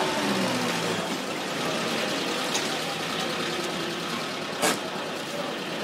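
Background music fading out in the first second, then a steady hiss of ambient noise with a single sharp click about four and a half seconds in.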